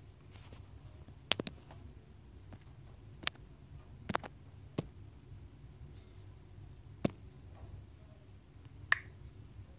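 Faint scattered taps of a fingertip on a smartphone touchscreen, about seven short clicks a second or so apart, over a low steady hum.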